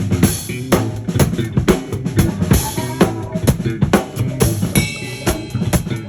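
Music with a steady drum-kit beat, kick drum and snare hits, over a sustained bass line.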